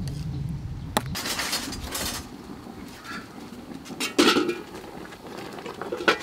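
A metal spoon clicks and scrapes in a bowl of sauce. Just after four seconds in, a large metal pot lid clanks loudly as it is lifted off a steaming pot, with a smaller clink near the end.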